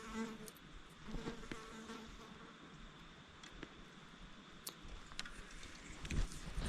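An insect buzzing on and off in short bursts over faint outdoor ambience, with a few light clicks and a soft low thump near the end.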